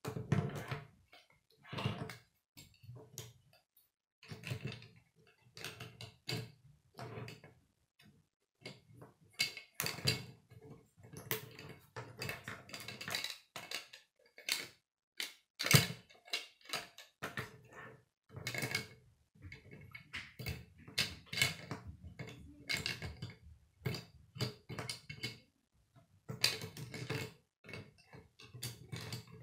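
Plastic K'nex pieces clicking and clattering as an assembled model is handled, turned and set down on a wooden tabletop, in many irregular sharp clicks with short pauses between clusters.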